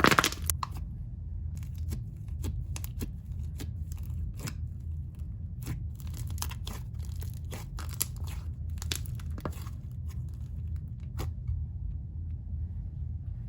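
Slime being stretched and squeezed by hand, giving off irregular sticky clicks, pops and tearing sounds over a steady low hum.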